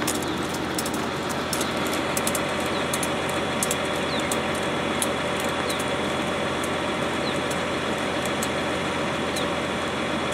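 Flatbed tow truck's engine idling steadily, running while the vehicle on its tray is tied down.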